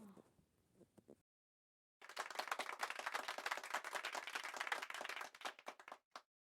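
A burst of applause, many hands clapping, that starts suddenly about two seconds in, lasts about three seconds and fades out, followed by a single click.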